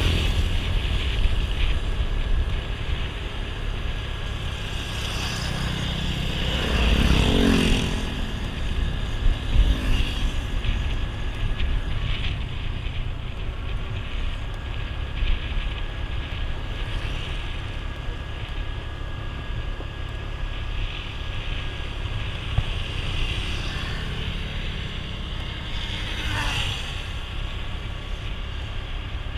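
Steady road and wind noise from travelling along a road. About seven seconds in, a vehicle passes close by and its engine note drops in pitch as it goes past. Another falling tone comes near the end.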